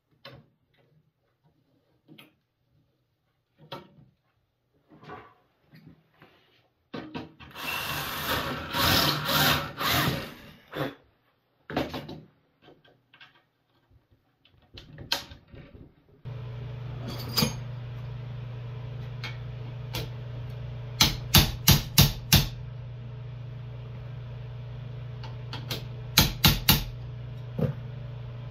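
Hammer striking the steel rim of a clamped tractor final-drive backer plate in sharp metallic taps: a quick run of about five, then about four more a few seconds later, over a steady hum. Before that come handling clicks and a few seconds of louder scraping as the felt and plate are worked.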